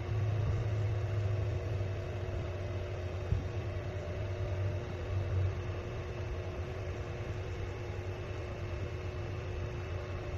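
A steady low mechanical hum with a few faint steady tones above it, a little louder in the first few seconds, and one short click about three seconds in.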